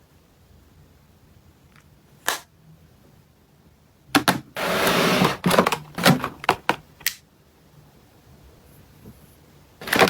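Makeup packaging being handled during an unboxing, making sharp clicks and taps. There is a single click about two seconds in, then a cluster of clicks in the middle around a loud burst of rustling noise lasting about half a second, and two more clicks at the end.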